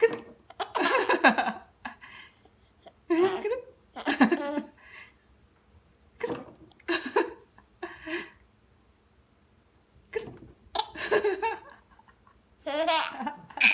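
A five-month-old baby laughing in short bursts of giggles, with hiccups breaking in between the laughs.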